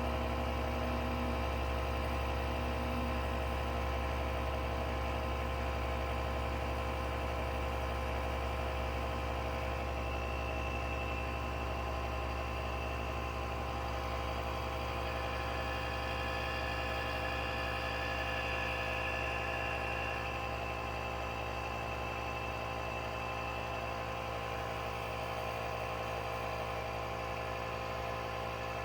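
Jeep engine idling steadily, with a faint high whine coming and going in the middle.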